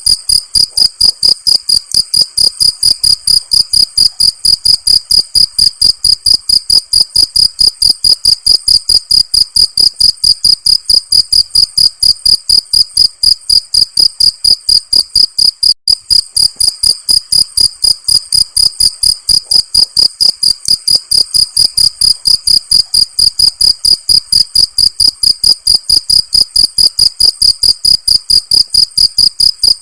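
Cricket chirping loudly in a fast, even rhythm of high-pitched pulses, with one very brief break about halfway through.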